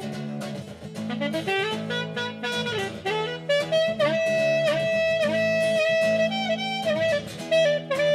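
Instrumental music with no vocals: a lead melody of held and bending notes over a steady low accompaniment.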